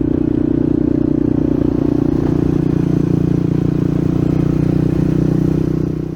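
Honda 500's engine running at a steady speed while being ridden.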